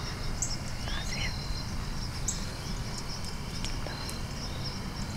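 Crickets and other insects calling steadily, with short high chirps about once a second and a few faint rising calls over a low steady rumble.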